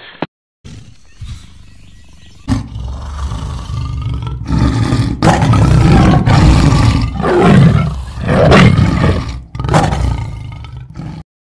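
Lion roaring: a low rumble swells into several loud roars, then cuts off suddenly near the end.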